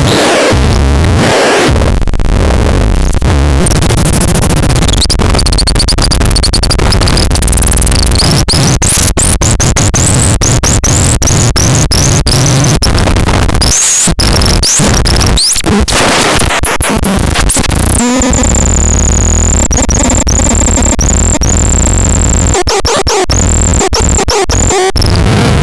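Harsh electronic noise: a dense, loud wash of noise with rapid glitchy clicks and short squealing pitch sweeps. From about two-thirds of the way in, a steady high whistle-like tone sits over it.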